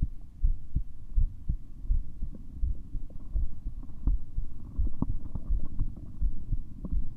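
A human heartbeat heard through a stethoscope: regular low lub-dub thuds, about two to three a second, with a low noise filling the gaps between them. It is played for judging whether a systolic murmur is present.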